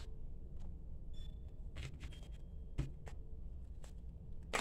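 A few faint, scattered clicks and taps of a tarot deck being handled in the hands, over a low steady room hum.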